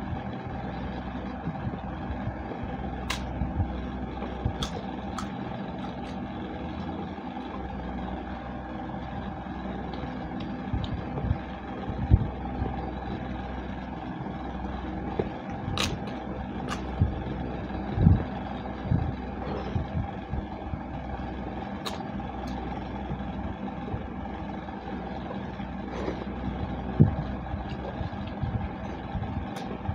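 Two people eating khichdi by hand from plastic plates: chewing and fingers working the rice, with scattered sharp clicks and a few soft thumps, over a steady background hum.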